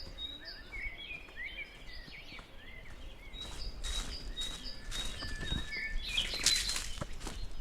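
Songbirds singing: one bird repeats a short high note about twice a second, with other, lower chirping phrases in between. From about halfway, footsteps on the trail come in and grow louder toward the end.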